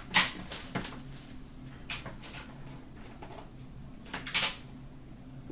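Hands handling trading-card boxes and packaging: a sharp tap just after the start, a few lighter taps, then a brief rustle or scrape about four seconds in.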